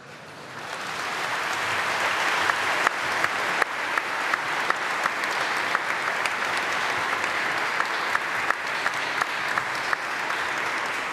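A large seated audience applauding, swelling over the first couple of seconds and then holding steady.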